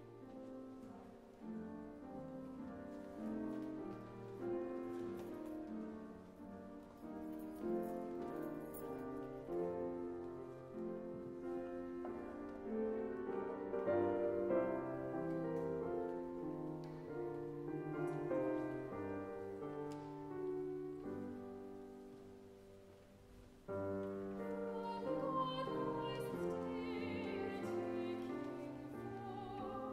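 Slow classical-style keyboard accompaniment with a woman singing solo with vibrato. The music fades briefly, then comes back suddenly louder about three-quarters of the way through.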